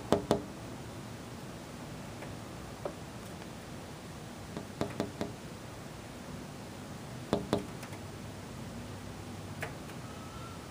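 Sharp little taps on a hard surface in small groups of two to four, the loudest group right at the start, with single taps in between, over a steady low hum.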